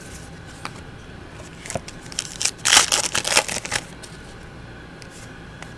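Clear plastic crinkling and trading cards rustling as they are handled, a burst of crackly rustles lasting about two seconds in the middle.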